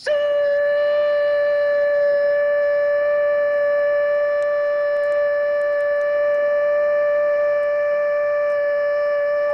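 A man's hog call: one long, loud held note at a steady pitch.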